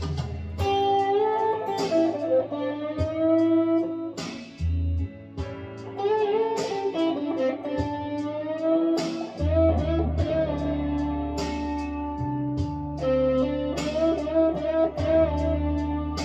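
Gibson Les Paul Traditional electric guitar playing a single-note lead line with string bends. Low sustained bass notes change every few seconds underneath.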